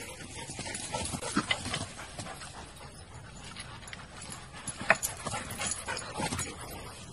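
Dogs jumping over a wooden stile: a series of thuds and knocks from their paws landing and scrabbling on the wood and ground, the sharpest knock about five seconds in.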